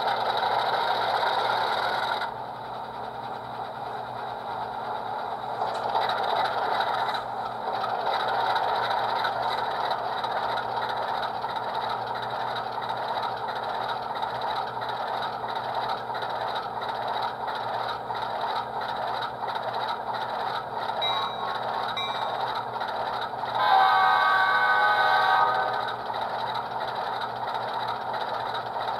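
ESU Select sound decoder in an HO-scale Santa Fe PA/PB diesel locomotive pair, playing a recorded diesel engine running through a small speaker. A horn blast about two seconds long sounds near the end, the loudest part.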